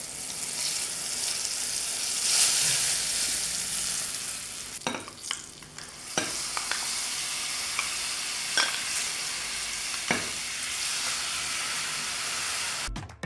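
Water pouring from a metal jug into a glass bowl of flour, then a metal spoon clinking against the glass bowl several times over a steady wet stirring as the batter is mixed. Music starts at the very end.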